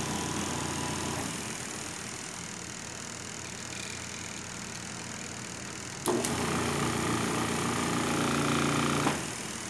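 Twin-tub washing machine's electric motors running on a bench with a steady hum. About six seconds in a click sounds and a louder motor hum cuts in for about three seconds, then cuts off: the wash motor being switched on and off as its timer cycles it forward and reverse.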